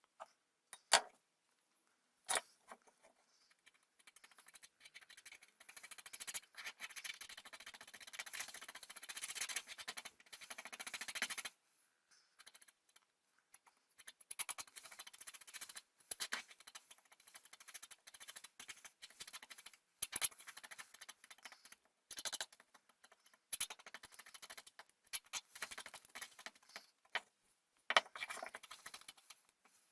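Hand abrasion of wooden handle scales: two sharp knocks in the first few seconds, then a long run of scratchy rubbing strokes, followed by shorter stop-start bursts of rubbing with small clicks as the piece is handled.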